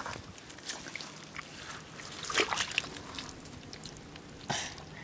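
Shallow water trickling and sloshing among rocks, with scattered small clicks and scrapes as stones are handled in a rock pool.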